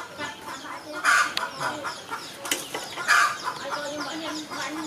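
Chickens clucking, with louder calls about a second in and again about three seconds in, and a sharp click near the middle.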